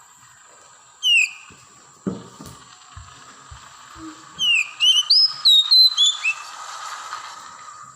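Oriental magpie-robin singing: a clear down-slurred whistle about a second in, then a quick run of varied sliding whistled notes.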